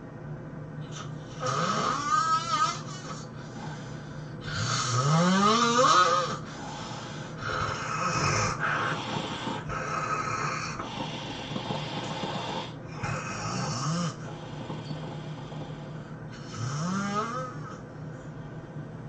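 A man snoring heavily: a string of loud, rough snores, each sliding upward in pitch, with quieter breaths between them; the loudest comes about five seconds in.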